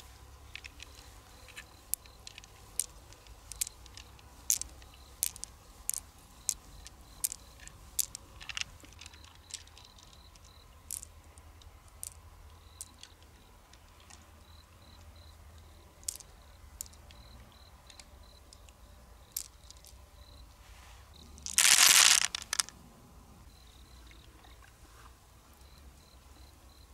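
Small sharp clicks, about one every half second, as pearls are picked out of mussel flesh and dropped onto an empty mussel shell; they thin out after a dozen seconds. About two-thirds of the way through, a loud burst of noise lasts about a second.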